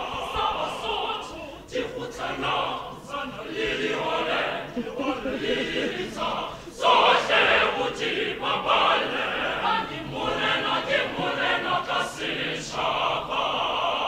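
Mixed choir of men's and women's voices singing under a conductor. The singing comes in loudest suddenly about seven seconds in and ends on a long held chord.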